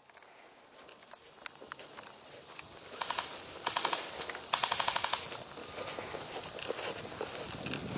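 Three short bursts of automatic airsoft gunfire, rapid clicks at about a dozen shots a second, with the longest burst last, a few seconds in. Crickets chirr steadily in the background.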